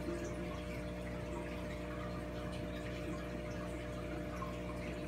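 Steady hum of aquarium pump and filter equipment, made of several low tones, with water faintly trickling and bubbling over it.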